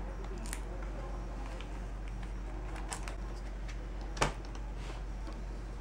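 Faint clicks and taps of a replacement battery being handled inside an opened MacBook Air, with one sharper click about four seconds in as the battery is pressed down into its slot. A steady low hum runs underneath.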